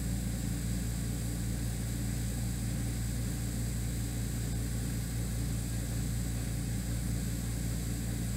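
Steady low droning hum under an even hiss: unchanging room noise with no other event.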